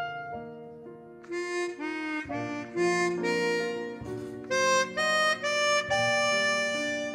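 Chromatic harmonica playing a melody in held notes, with piano accompaniment beneath.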